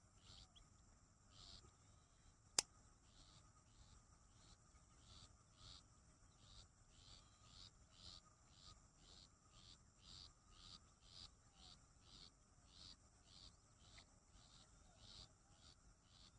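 Faint rhythmic chirping of insects, about two chirps a second over a steady high buzz, with a single sharp click about two and a half seconds in.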